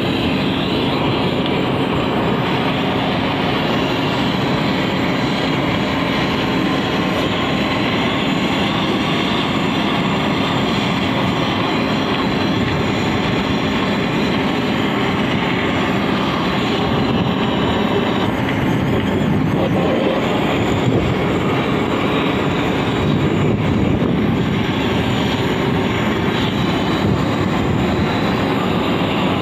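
Handheld gas-cartridge blowtorch flame giving a steady, unbroken rushing hiss as it heats torch-on bitumen waterproofing membrane to seal it to the roof.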